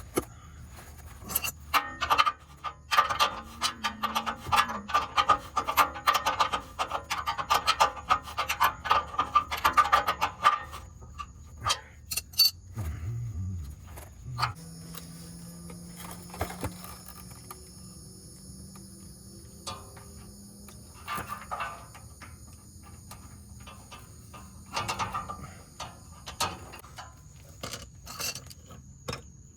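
Metal hand tools working on engine parts: rapid clicking and scraping for the first ten seconds or so, then scattered clinks and rubs.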